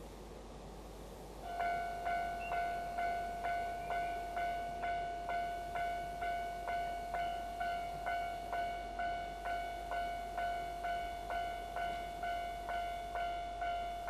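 Japanese railway level-crossing warning bell starting up about a second and a half in. It then rings in an even rhythm of a little under two strikes a second, the signal that a train is approaching the crossing.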